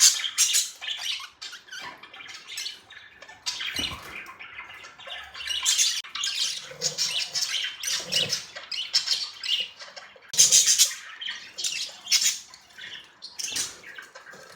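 Several pet budgerigars chirping and chattering: a busy, overlapping run of short high chirps and squawks, loudest about ten seconds in.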